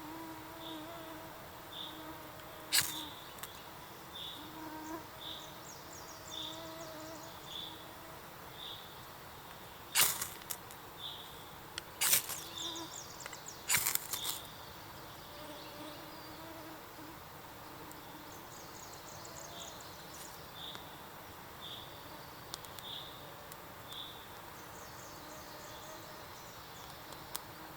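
Forest ambience: a bird repeating a short, high call about once a second, with faint trills, and an insect buzzing on and off. Several sharp clicks or snaps stand out as the loudest sounds, a few seconds in and again about ten to fourteen seconds in.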